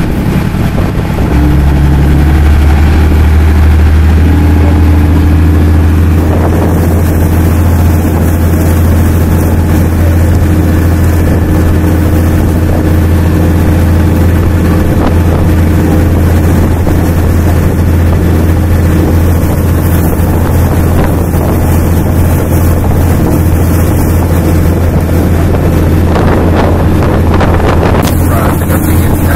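Tourist boat's engine running steadily under way, picking up about a second and a half in, with wind on the microphone.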